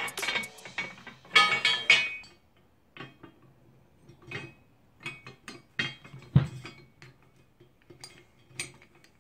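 Steel and cast-iron parts of a Hi-Lift jack clinking and rattling as its climbing pins and springs are fitted back into the mechanism. A quick clatter in the first two seconds, then scattered light clicks, with a heavier knock a little past the middle.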